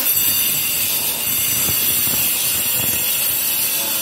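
Angle grinder with a dust-extraction hose running steadily on a granite countertop: a loud, even high-pitched whine over dense grinding noise.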